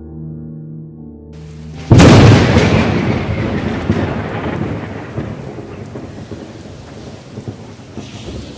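A sustained music chord ends, and about two seconds in a sudden loud thunderclap breaks out, then rumbles and slowly fades over steady rain.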